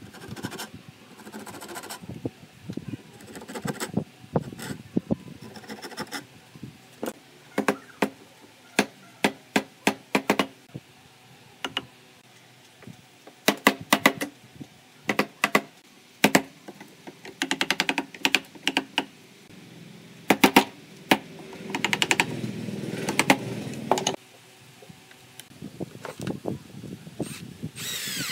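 Handsaw cutting into the corner of a pine frame, then a long series of sharp knocks, at times about two a second, as a chisel is struck to chop a hinge recess in the wood. A cordless drill starts up right at the end to drive a hinge screw.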